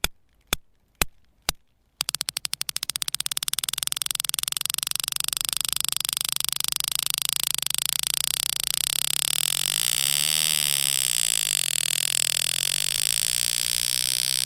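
Sperm whale clicks: a few sharp, separate clicks about two a second, then, about two seconds in, a very rapid click train that runs together into a steady buzz, the creak a sperm whale makes as it closes in on prey.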